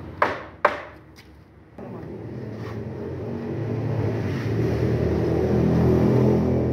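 Two sharp hammer blows on the wooden door frame, then a lighter knock. Just under two seconds in, a machine motor starts and runs, getting steadily louder.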